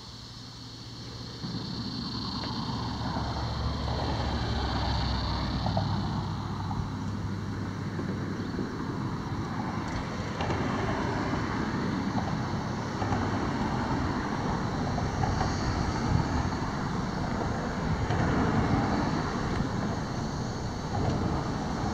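Low rumble of road traffic on the bridge overhead, building about a second and a half in, over a steady, uneven rushing noise.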